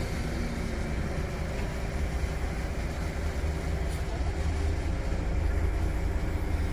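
Mobile crane truck's engine running steadily under load with a deep rumble while it hoists a heavy armoured-car hull on chains; the crane is struggling with the weight.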